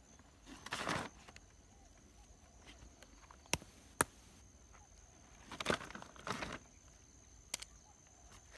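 Footsteps scuffing over forest ground with a few sharp clacks of stones knocking together as stones are picked up and gathered. The clacks come as two close together about three and a half seconds in and one more near the end.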